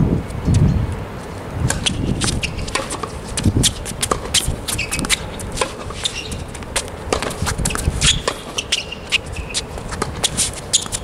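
Tennis rally on a hard court: sharp, irregular knocks of the ball coming off racquet strings and bouncing, mixed with shoes scuffing and squeaking on the court surface. A low rumble sits under the first second.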